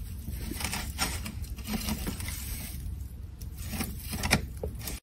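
Soft scratching and scattered light taps from a small animal moving inside a wooden crate, with a few sharper clicks; the sharpest comes a little over four seconds in.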